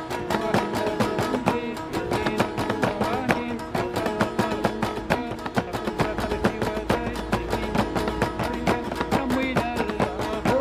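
Instrumental music: a plucked string instrument playing a melody over a fast, steady percussion beat.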